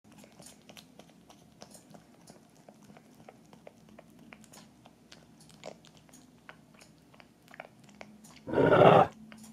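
Pug puppy asleep: faint clicks and smacks from its mouth and snout, then a loud, rough snore near the end.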